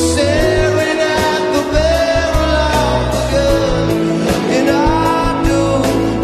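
A song with a sung melody held on long, gliding notes over bass and a steady drum beat.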